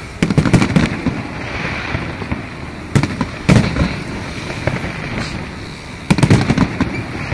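Aerial fireworks shells bursting overhead: three clusters of sharp booming bangs about three seconds apart, with a steady background noise between them.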